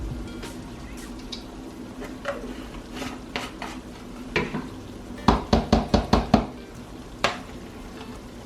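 Spoon stirring and clinking in a pot of mashed potatoes, with a quick run of about seven knocks against the pot a little past halfway, over chicken frying in a pan.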